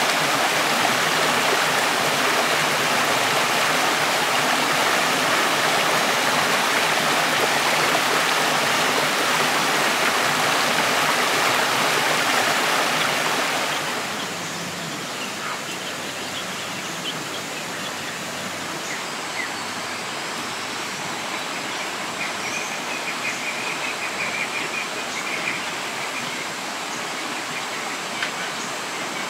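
Steady rushing of water, loud for about the first half, then dropping abruptly to a quieter hiss with a few faint ticks.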